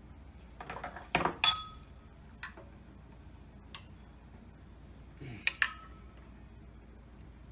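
Sharp metallic clinks and taps with a short ringing tone, metal parts knocking together while a ceiling fan's blades and brackets are handled: a loud pair about a second in, lighter ticks after, and another loud pair about five and a half seconds in.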